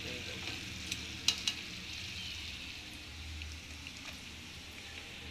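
Biryani masala with potatoes sizzling in a metal pot on the stove while a spoon stirs and scoops it. A few sharp clicks of the spoon against the pot come around a second in.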